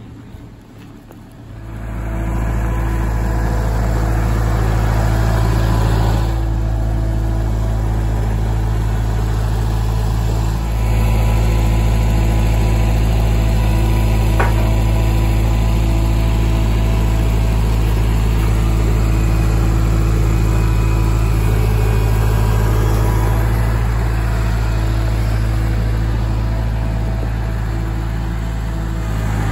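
Kubota tractor's diesel engine running at a steady speed, coming in loud about a second and a half in after a moment of wind noise on the microphone. There is one faint click about halfway through.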